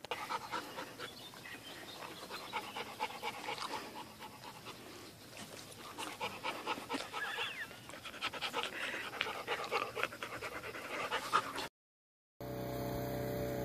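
A dog panting and whimpering in quick bursts, with a few short high whines about seven to nine seconds in. It cuts off near the end, and after a brief gap a steady hum follows.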